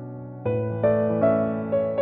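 Background music: a slow keyboard melody of sustained notes, with a louder chord entering about half a second in.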